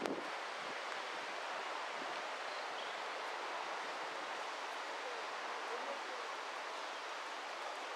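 Steady wind noise with leaves rustling, an even hiss with no distinct events.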